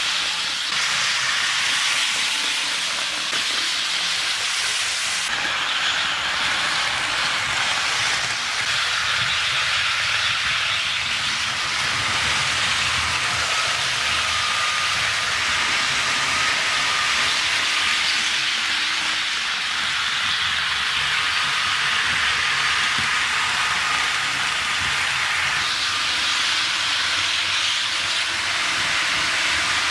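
HO scale model trains running on sectional track: a steady rushing hiss of wheels on rails, with a faint whine that comes and goes.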